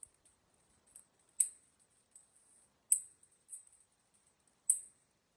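Irregular sharp clicks and taps, three of them louder and about a second and a half apart, with fainter ticks in between.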